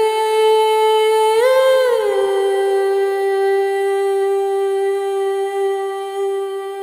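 Music: a single melody line holding long, smooth notes. It swells up in pitch about a second and a half in, glides back down, and holds one long note.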